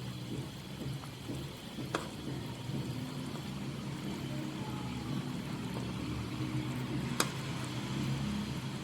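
Thin curry bubbling at a simmer around chicken koftas cooking in the pan. Two sharp clicks break in, a faint one about two seconds in and a louder one about seven seconds in.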